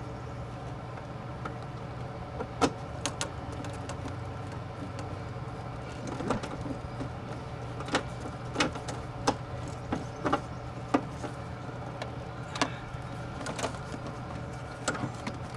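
Irregular light clicks and knocks of plastic door-trim parts, a screw and a screwdriver being handled while the door's interior panel pieces and switch wiring are refitted, over a steady low hum.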